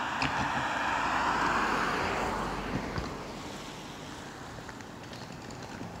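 A vehicle passing on the road: its tyre and road noise swells over the first second or two, then fades away by about four seconds in.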